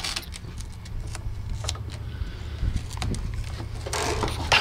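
Filament strapping tape being handled and pressed onto the foam body of an RC plane, with scattered light crinkles and taps, then a louder rip of tape off the roll near the end. A steady low rumble runs underneath.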